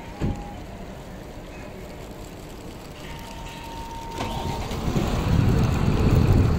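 Isuzu refrigerated truck with a 4HK1-TC diesel engine driving slowly, with a brief knock just after the start. From about four seconds in, a louder low rumble builds up, with wind buffeting the microphone.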